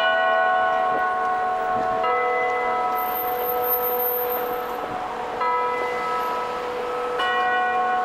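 The Wako building clock tower's bells chiming the hour, a slow melody of four notes about two seconds apart, each note ringing on under the next.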